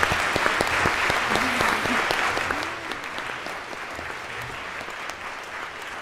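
Audience applauding, a dense patter of many hands clapping that is loudest for the first few seconds and then eases off a little.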